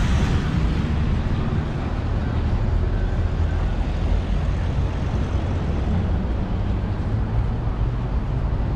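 City road traffic passing on a busy street, a steady noise of cars and tyres, with low wind rumble on the microphone.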